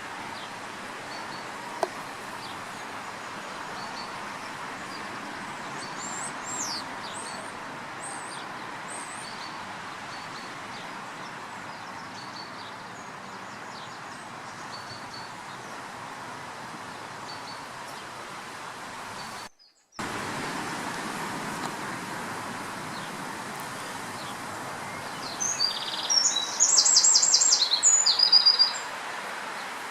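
Scattered bird chirps over steady background noise, which drops out briefly a little past the middle. Near the end a songbird close by sings a loud burst of rapid, repeated high trills lasting about three seconds.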